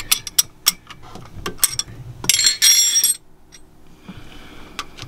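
Hand tools clicking and clinking on metal as a fastener on a Northern Lights generator's exhaust elbow is undone: a run of sharp clicks, then a brief busier metallic clatter with a ringing edge a little past halfway, fading to a few faint clicks.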